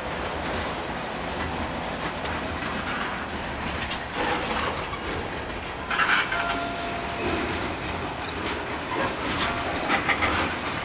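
Freight train's covered hopper cars rolling past, wheels clacking over the rail joints among scattered knocks, with a brief squeal a little after six seconds.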